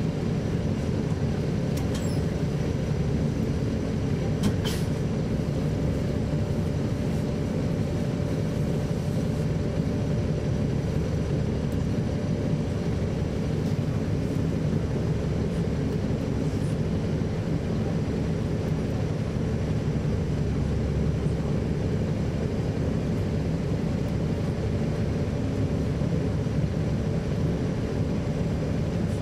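Caterpillar C13 ACERT diesel engine of a NABI 40-SFW transit bus running steadily, heard from on board the bus. A couple of faint clicks come about two and four and a half seconds in.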